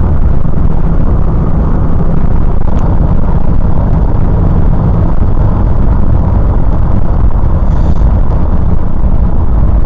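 2003 Honda Element's 2.4-litre four-cylinder engine held at about 4,000 to 4,500 rpm while driving, a steady loud run with road noise. The high-rpm run tests whether the P2646 VTEC rocker-arm oil pressure switch fault comes back.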